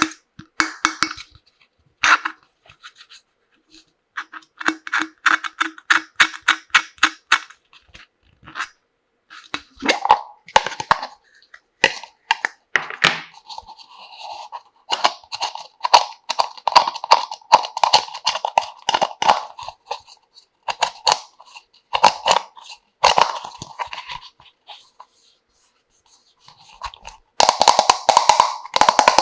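Quick, irregular clicks and clatter of small plastic toy tea-set pieces being handled and knocked together, denser near the end.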